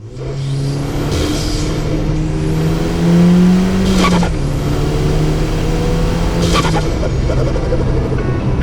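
Audi S3 8P's turbocharged 2.0 TFSI four-cylinder, breathing through an open intake, accelerating hard: the engine note climbs twice, and each climb ends in a short sharp burst of turbo flutter as the throttle closes, about four and six and a half seconds in, before settling to a steadier run.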